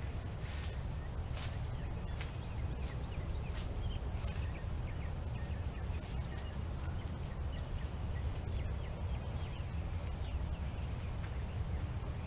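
Outdoor yard ambience: birds chirping in short, high, rising notes scattered throughout, over a steady low rumble, with a few brief rustles about half a second and a second and a half in.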